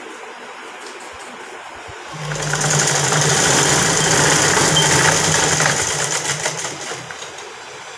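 Sewing machine starting up about two seconds in and running steadily for about four seconds, then slowing and stopping. It is stitching over a stretched elastic waistband.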